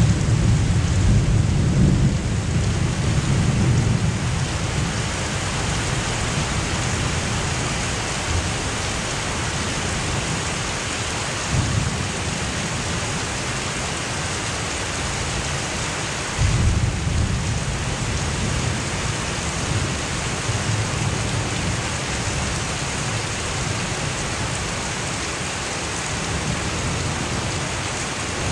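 Heavy thunderstorm downpour, the rain hissing steadily, with deep thunder rumbling under it. One rumble dies away in the first few seconds, and a louder one starts suddenly about 16 seconds in and rolls on for several seconds.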